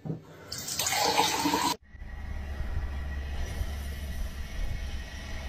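Water gushing from a kitchen tap turned on full into a stainless-steel sink and a plastic cup, cut off abruptly under two seconds in. Then a steady low rumble.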